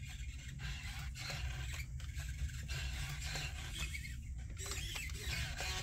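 Small servo motors in the Professor Einstein robot's head whirring and scraping in uneven spurts as it moves its eyes and face. A steady low hum runs underneath.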